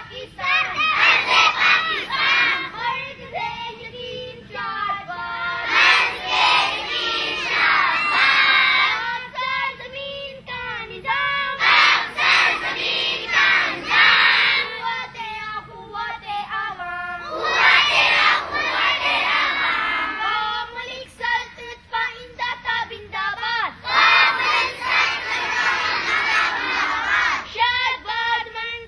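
A large group of schoolgirls singing together in unison, loud, in phrases a few seconds long with short breaks between them.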